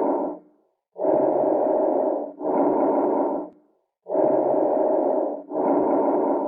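Bronchovesicular breath sounds on an auscultation recording: a blowing noise of medium loudness and pitch. Inspiration and expiration are about equal in length and run into each other with no gap, with a short pause between breaths. Two full breaths are heard, plus the end of one exhalation at the start. This is the normal breath sound that lies between vesicular and bronchial.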